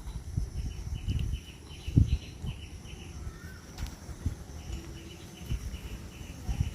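Outdoor ambience with two runs of quick, high, evenly spaced chirps, about five a second. The first run is about a second in and the second is after the middle, with a single short gliding call between them. Irregular low thumps and rumble run beneath, the loudest about two seconds in.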